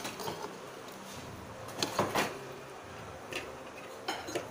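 Tableware being handled on a table: several light, separate knocks and clicks spread over a few seconds.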